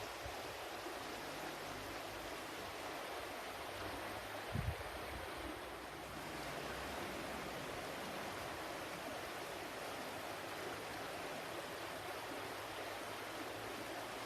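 Flowing water running steadily with an even rushing sound. A brief low thump about a third of the way in.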